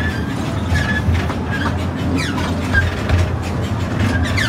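Amusement-park train cars rumbling and clacking along the track through a curve, with short, high wheel squeals now and then.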